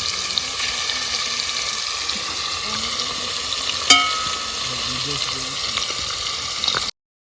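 Curry chicken frying and sizzling in a pot, a steady hiss. About four seconds in comes a single sharp metallic clink that rings briefly, and the sound cuts off abruptly near the end.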